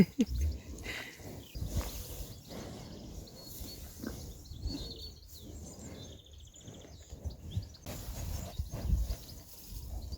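Cows snuffling and breathing close to the microphone, with irregular knocks and rustles as they nose at the camera tripod.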